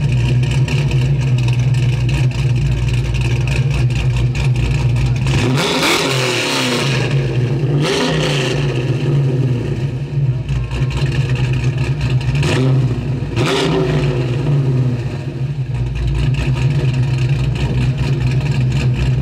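Car engines running steadily, with cars driving past: twice, about six and thirteen seconds in, a passing engine's pitch sweeps up and back down, and there are short loud revs in between.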